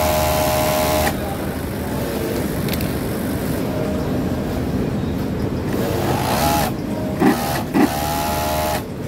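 Industrial sewing machine running with a steady hum, stopping abruptly about a second in, over the steady hum of other machines. Two short thumps half a second apart near the end.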